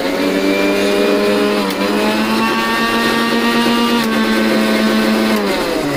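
Electric kitchen mixer grinder running with a thick milk-and-ice-cream smoothie in its steel jar: the motor spins up at the start, its pitch shifts twice, and it winds down near the end. The thick mix formed an air pocket around the blade ("vacuum cutting"), so the blade partly spun free.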